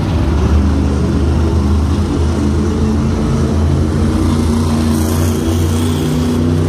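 Monster truck's supercharged V8 engine running loud and steady.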